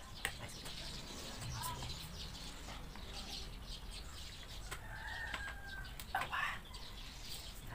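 Light clicks and rustling as the plastic tube frame and wrapping of a baby rocking chair are handled during assembly, with a few short bird calls in the background.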